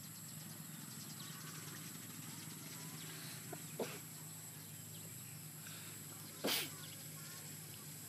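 Chicken clucking faintly against a steady outdoor background, with a short sharp noise about six and a half seconds in that is the loudest sound.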